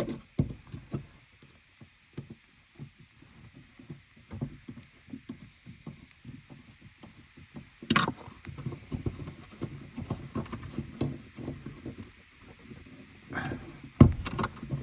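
Irregular small clicks and knocks of hand tools and plastic parts being worked while a return fuel hose is pulled off a fuel pump unit in the fuel tank. A sharp click comes about 8 seconds in and a louder knock near the end.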